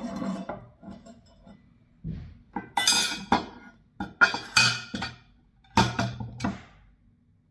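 Flat metal plates clanking and scraping against each other and the tabletop as they are handled and set in place, with several clanks, most of them ringing briefly.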